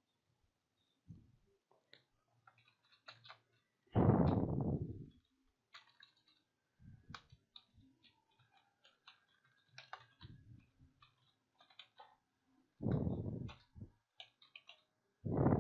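Computer keyboard typing: irregular light key clicks. Three louder bursts of rushing noise, each about a second long, come about four seconds in, near thirteen seconds and at the end.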